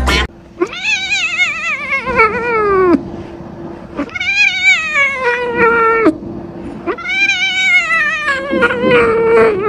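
Domestic cat caterwauling: three long, wavering yowls, each sliding down in pitch at its end.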